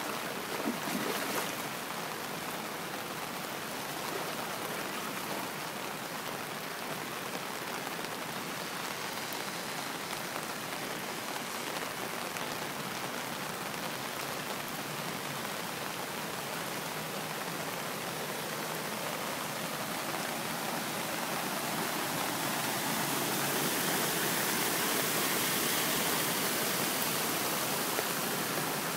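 Fast-flowing muddy floodwater rushing across a flooded road, a steady noise of moving water that grows louder about three-quarters of the way through.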